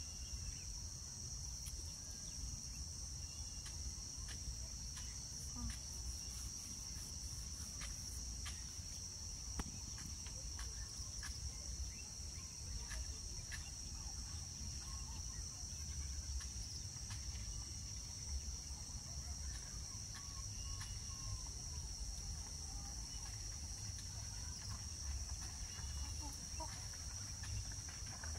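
Crickets chirring in a steady high-pitched chorus over a low rumble, with scattered faint clicks.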